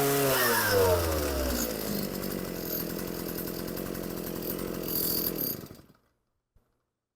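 Earthquake 43cc two-stroke post-hole digger engine, freshly repaired with a new carburetor, running at high speed, then dropping to a rough idle as the throttle is let off, and shutting off about six seconds in.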